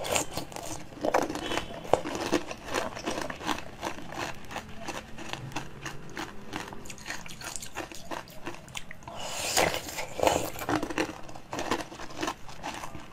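Close-miked mouth sounds of biting into and chewing jelly lollipops: a dense run of short clicks, with louder bites about a second in and again late on.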